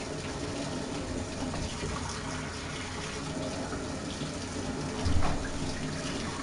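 Steady rush of running water, with a single low thump about five seconds in.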